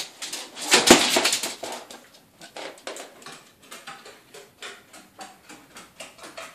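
A dog's claws clicking and scuffling on a wooden floor as it scampers about, in quick uneven clicks, with a louder scuffle about a second in.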